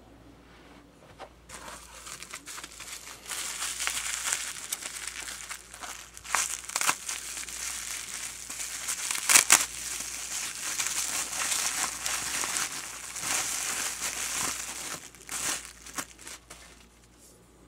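Plastic bubble wrap being handled and pulled open by hand, crinkling and rustling with sharper crackles, the loudest about halfway through. It starts a second or two in and dies down near the end.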